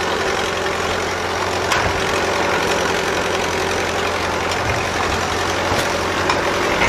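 Small farm tractor engine running steadily at low speed while pulling a loaded wagon, with a couple of short knocks.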